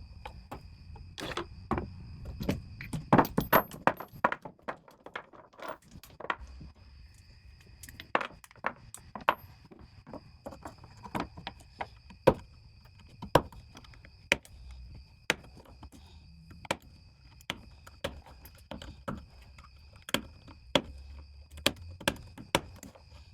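Sharp plastic snaps and clicks, about one a second with a quick cluster a few seconds in, as the small retaining tabs are cut off plastic socket organizer rails and the sockets are handled.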